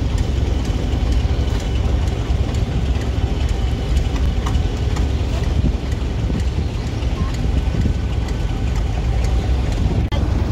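A steady low rumble, with light scraping and clicking from plastic scoops shoveling small fish out of a hold and a crate into baskets.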